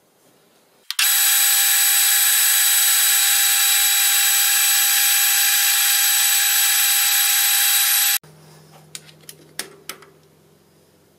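Manual metal lathe running with the chuck spinning while a turning tool takes a cut along the round bar: a loud, steady whine of several high tones. It starts suddenly about a second in and cuts off abruptly after about seven seconds. A few light clicks follow as a digital caliper is set on the turned diameter.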